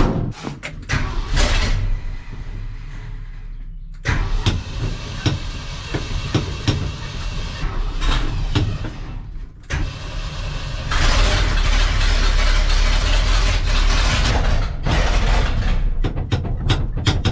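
Old tandem truck's engine running as the truck drives, louder for a few seconds past the middle, with a few sharp clicks and clunks at the start.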